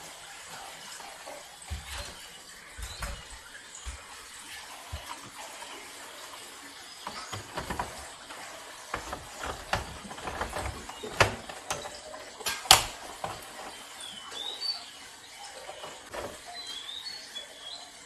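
Plastic clicks and knocks of a wall-mounted air conditioner's filter and front panel being fitted back in place, with two sharp snaps a little past the middle as the front panel is pushed shut. A few short high chirps near the end.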